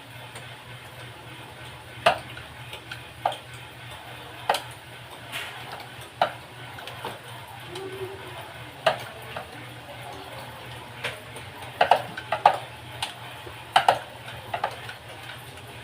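Irregular light clicks and knocks, about twenty of them, more frequent near the end, over a steady low hum.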